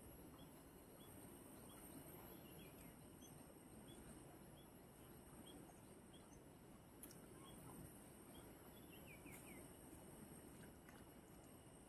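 Near silence: faint outdoor ambience with a low steady hush, a short high chirp repeated about twice a second, and a couple of quick runs of falling high bird-like notes.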